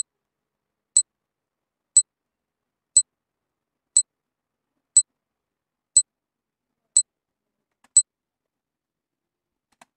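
Countdown timer sound effect: a short, high-pitched tick once a second, nine times, stopping about two seconds before the end.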